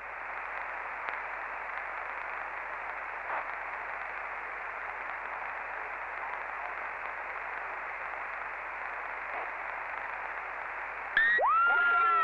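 CB radio receiver on 27.555 MHz hissing with open-channel static between transmissions. About eleven seconds in, a loud burst of swooping, warbling electronic tones comes in over the channel.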